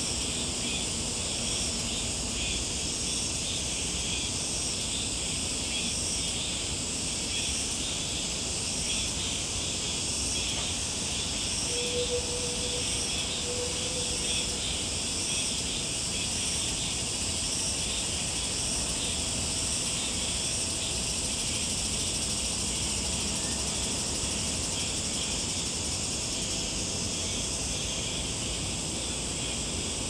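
Steady chorus of summer insects, a high-pitched pulsing drone that never lets up, over a low background rumble.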